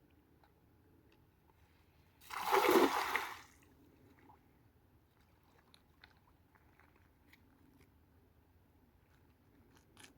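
A single splash in water about two seconds in, lasting about a second and a half, against a quiet background with a few faint clicks.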